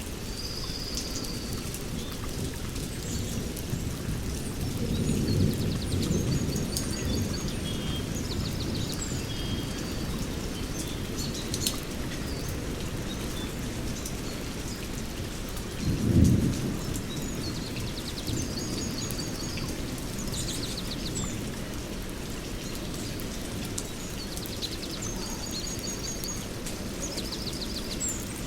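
Heavy rain falling steadily on forest leaves, with birds chirping and trilling repeatedly through it. A low rumble swells about five seconds in, and a shorter, louder rumble comes around sixteen seconds in.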